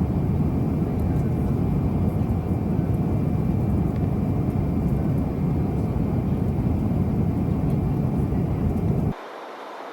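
Steady, low-pitched drone of a jet airliner's cabin in flight, with no change. It cuts off suddenly near the end, giving way to a much quieter hiss.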